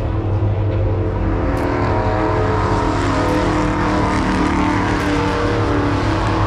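NASCAR-style stock car's V8 engine running at speed on the speedway oval, a loud continuous engine drone that swells a little around the middle.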